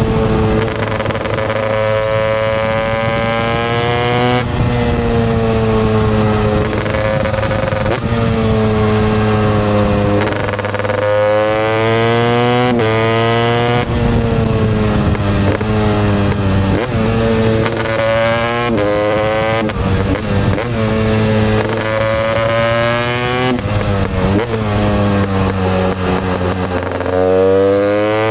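Husqvarna TE 250i single-cylinder two-stroke motorcycle engine being ridden, its revs climbing and dropping back repeatedly.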